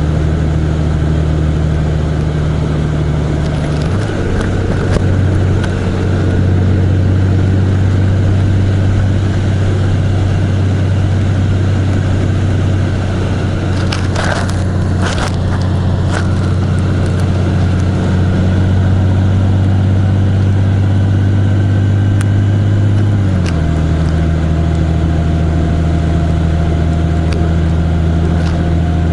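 Vehicle engine running steadily under way, its note stepping up a few seconds in and dropping back lower about three-quarters of the way through. A short cluster of clicks or rattles sounds near the middle.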